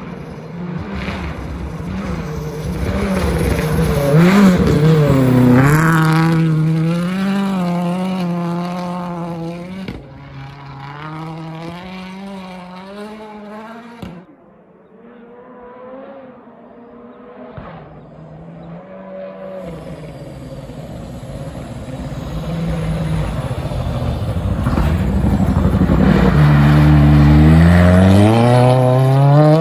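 Ford Fiesta WRC rally car's turbocharged four-cylinder engine driven hard past twice. The first time it revs up and down through gear changes, gets loud and fades away. After a break the second pass builds and rises in pitch as it accelerates, loudest near the end.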